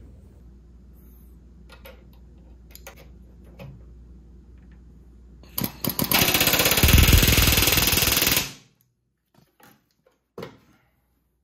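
Pneumatic rivet gun, fitted with a flat rivet set on a C-frame set used as an extension, driving a flush rivet into aluminium structure: a couple of short taps, then one burst of fast hammering lasting about two and a half seconds that stops abruptly. Faint clicks of handling before it.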